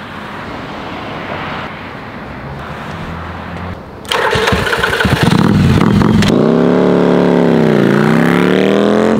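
Yamaha Virago 750 V-twin motorcycle engine, much louder from about four seconds in as it revs and pulls away, its pitch rising, dipping briefly and rising again.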